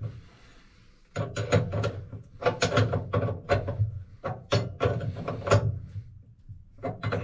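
Small metal wrench clicking and clinking against a brass faucet fitting as the stem nut is turned back down: a run of sharp, irregular metallic clicks starting about a second in.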